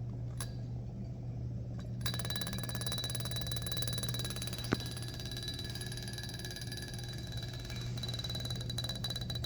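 A quarter resting on the mouth of a bottle of dry ice, rattling rapidly as the carbon dioxide gas builds up and escapes, pushing the coin up again and again. It makes a fast, buzzing metallic chatter with a ringing tone, which starts about two seconds in after a few separate clicks.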